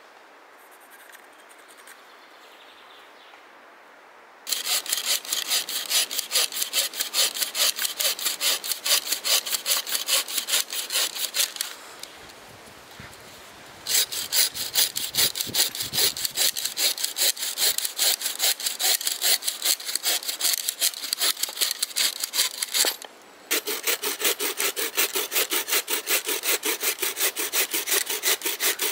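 Wooden-framed bow saw cutting through a birch wood blank in fast, even back-and-forth strokes. The sawing starts about four seconds in, stops for a couple of seconds near the middle, and breaks off again briefly near the end.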